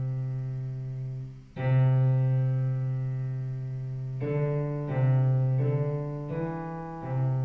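Digital piano playing a slow melody of single low notes, one at a time. A held note rings into a second at about a second and a half, then five more notes follow at an even pace in the second half.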